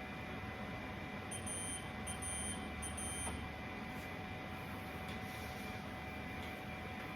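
Three short, high electronic beeps, about a second apart, over a steady machine hum with a few constant tones.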